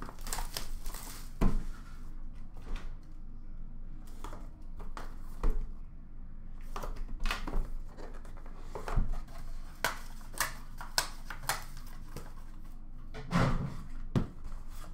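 A cardboard box of hockey cards being opened and handled: scattered taps, scrapes and rustles of cardboard, with a few louder knocks as it is set down and its lid lifted off.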